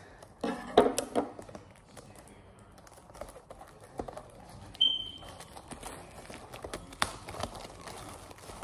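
Scissors cutting into the wrapping of a cardboard trading-card box, and hands working the box open. A loud clatter of snips and knocks comes about a second in, a brief squeak near the middle, and crinkling rustle later on.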